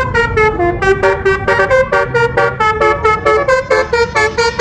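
Telolet bus horn playing a quick tune of short horn notes, about four a second, stepping up and down in pitch: the multi-tone musical horn fitted to Indonesian buses.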